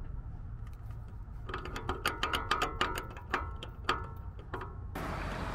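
Irregular metallic clicking, several clicks a second, from the 8th-gen Honda Civic's driver-side inner CV joint as the axle is worked, a joint the owner believes has burst and flung out its grease. The clicking starts about one and a half seconds in and stops shortly before the end.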